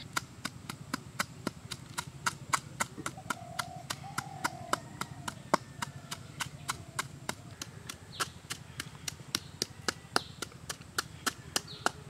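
Wooden pestle pounding red chillies in a half coconut shell: sharp, regular knocks, several a second.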